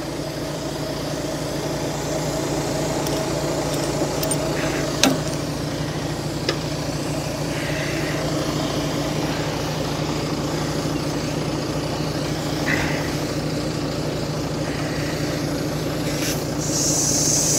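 Volvo G88 truck's diesel engine idling steadily, with a few sharp metallic clinks of hand tools. Near the end a loud hiss of compressed air starts from the truck's air system, which has been bypassed so that air pressure can build.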